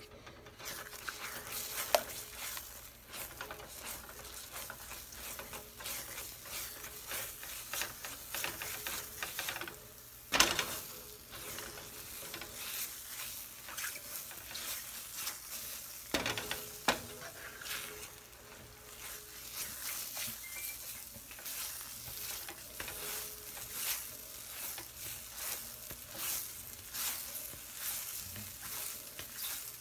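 Scrambled eggs sizzling in a frying pan while a spatula stirs and scrapes them against the pan, with a few sharper knocks now and then.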